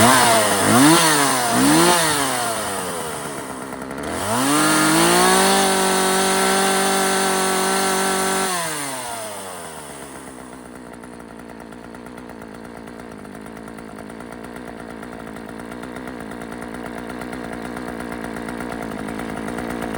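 McCulloch two-stroke chainsaw engine running. The throttle is blipped three times, then the engine revs up and is held at high speed for about four seconds. It falls back to a steady idle for the second half.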